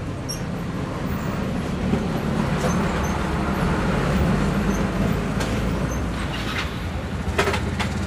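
Steady low engine-like rumble from an unseen running motor or traffic, with a couple of sharp metallic clicks near the end.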